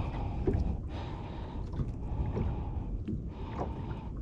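A person breathing hard in a few short gasps while hauling in fishing line by hand, over a steady low rumble.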